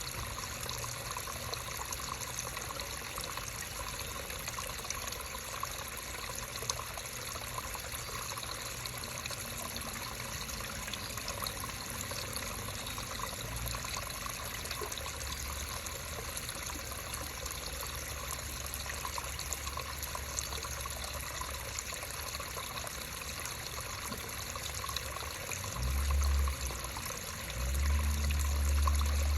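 Creek water flowing and trickling steadily, with a low rumble coming in near the end.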